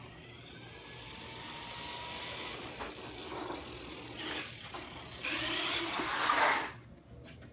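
Custom six-wheel RC car with a brushless motor driving toward the microphone: a rising electric-motor whine and tyre noise on pavement grow louder as it approaches, loudest about six seconds in, then cut off.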